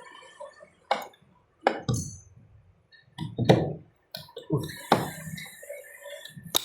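Sharp clicks and knocks at uneven intervals as a tool works at the stuck, glued plastic housing of a Starlink power supply, trying to pry it open.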